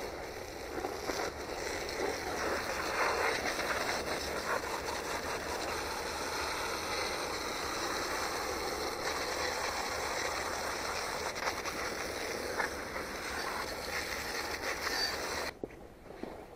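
Garden-hose spray nozzle jetting water onto a muddy dirt bike's wheels and frame, a steady hiss and spatter. The spray cuts off suddenly near the end.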